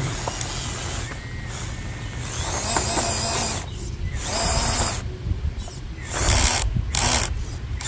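Traxxas TRX-4M mini crawler's drivetrain running in spurts under load, with a ratcheting clicking from the front end. The owner takes this for a failed front differential gear.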